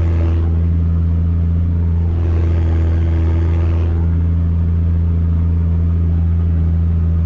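Deutz-Fahr Agrotron M610 tractor's six-cylinder diesel engine running steadily under load while pulling a reversible plough through the soil, heard from inside the cab.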